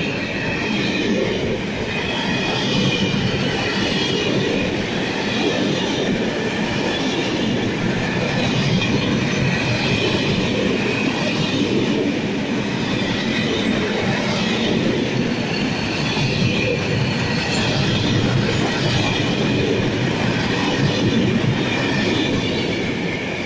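Covered freight wagons of a long goods train rolling past close by: a steady rumble of wheels on rail, with a high wheel squeal that wavers and comes and goes. The sound starts to fade right at the end as the tail of the train goes by.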